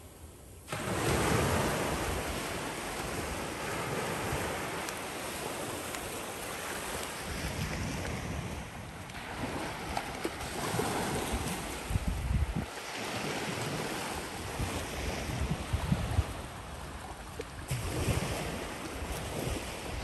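Small waves washing onto a sandy shore, with wind buffeting the microphone in irregular low gusts. The sound rises sharply about a second in.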